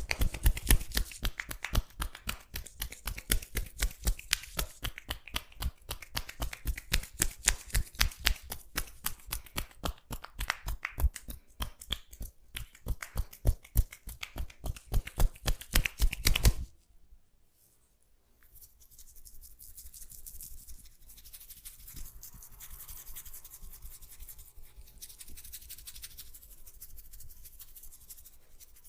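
Hands tapping on a person's head and neck in a rapid, even rhythm of several strikes a second, which stops suddenly a little over halfway through. After a short pause, softer rubbing and scratching of hands on oiled hair and scalp.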